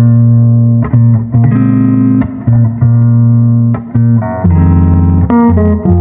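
Background music: plucked guitar chords over a bass line, the chord changing about every second.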